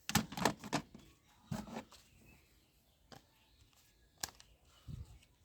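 Plastic clicks and knocks of toy guns being handled: a quick cluster at the start, then single sharp taps every second or so.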